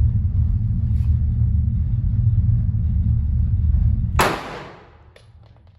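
A single pistol shot about four seconds in, cracking sharply and ringing off briefly, over a steady low rumble that drops away with the shot.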